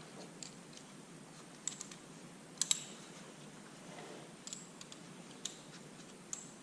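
Light, sharp clicks and taps at irregular intervals, about seven in all, the loudest a quick double click about two and a half seconds in, over a faint steady background hiss.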